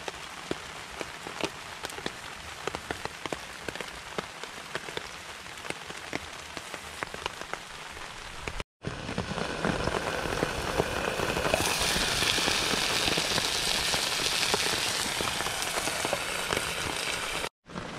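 Chicken frying in a pan over a campfire in the rain: an even sizzling hiss dotted with small ticks and pops. After a brief gap about halfway, the hiss is louder and brighter, with a lid on the pan.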